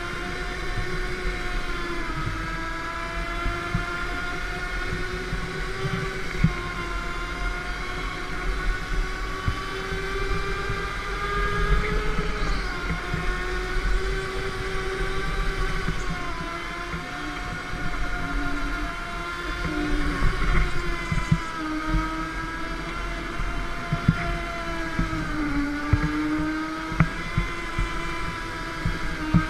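Go-kart running at speed, heard from onboard: a steady motor whine that dips in pitch several times and climbs again, over low rumble from the track and occasional short knocks.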